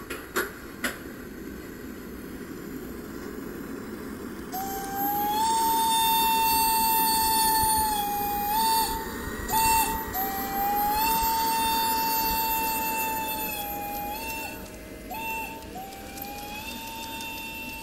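Piko BR 254 model electric locomotive running along garden railway track, its wheels making a steady rolling rumble after a few sharp clicks at the start. About five seconds in a high whine joins: it rises, holds steady with a few brief dips, and fades toward the end.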